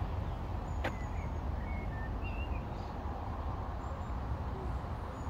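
Outdoor garden ambience: a steady low rumble on the microphone, a sharp click about a second in, and a few faint short bird chirps.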